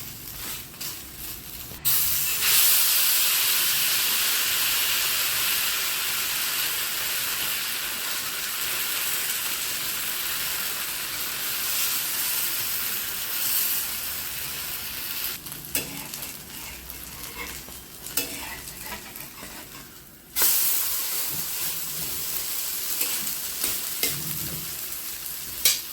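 Moong dal chilla batter frying in hot oil on a pan: a loud sizzle starts suddenly about two seconds in and dies down a little after the middle. After a quieter stretch with light clatter, a loud sizzle starts suddenly again about twenty seconds in.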